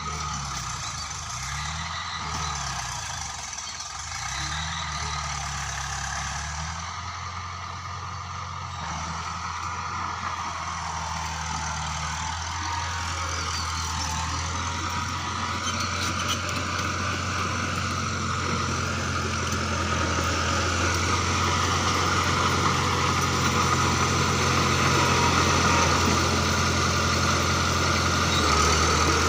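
Bulldozer's diesel engine running, its speed rising and falling several times in the first few seconds, then holding steady and growing gradually louder, with mechanical clatter over the engine note.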